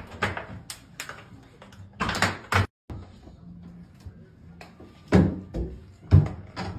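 Sharp knocks and creaking wood as nails are pried out of old wooden window trim with hand tools. The sound cuts off abruptly nearly three seconds in, then more knocks follow.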